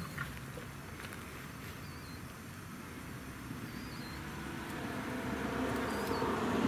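A passing vehicle's motor, quiet at first and growing louder over the last few seconds, under outdoor ambience with a short high chirp repeating about every two seconds.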